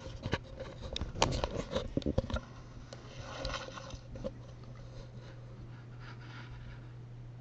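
A quick run of light clicks and taps for about two and a half seconds, then only a low steady hum.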